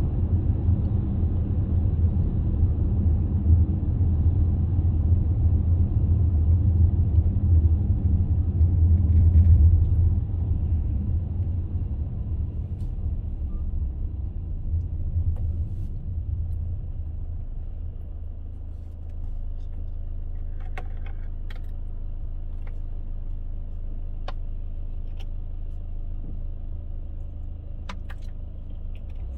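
A car's low road and engine rumble, heard from inside the cabin while driving. The rumble drops after about ten seconds and again a few seconds later, and a few light clicks or rattles come in the second half.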